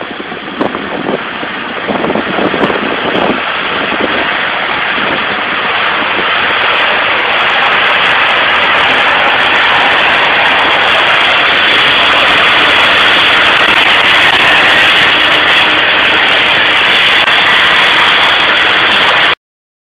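15,000 PSI water-jetting lance blasting a concrete surface: a loud, steady hiss of spray that builds over the first several seconds, then cuts off suddenly near the end.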